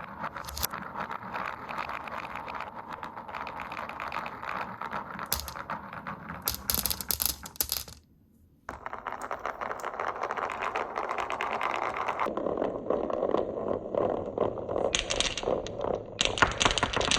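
Glass marbles rolling down a wooden HABA wave-slope marble run: a steady rolling rumble full of small clicks and clacks. The sound cuts out briefly about 8 s in, then the rolling resumes, turning deeper about 12 s in, with sharp clacks near the end.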